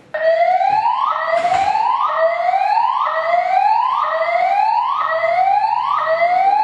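Building fire alarm's voice-evacuation system sounding its whoop alert tone between spoken messages. It starts abruptly and repeats a rising sweep about three times every two seconds.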